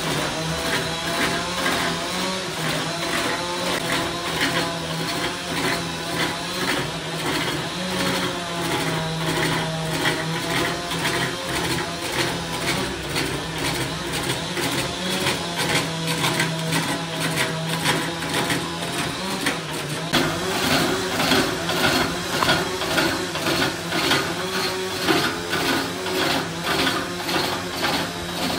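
Large wood lathe spinning a big log with a steady motor hum, while a long-handled turning tool scrapes and cuts into the wood in a fast rough chatter. The cutting gets louder and rougher about twenty seconds in.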